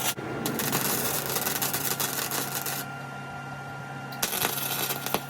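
Wire-feed welder arc crackling in two bursts, one of about two and a half seconds and a shorter one near the end, tack-welding a caster wheel onto steel box section. A steady low hum runs underneath.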